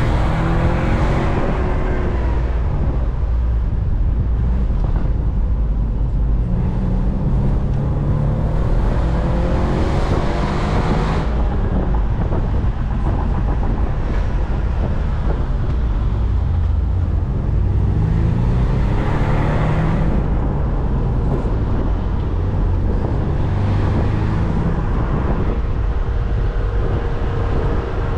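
BMW Z4 convertible's engine pulling hard, its revs climbing and dropping back several times as it works through the gears, over steady road and wind noise.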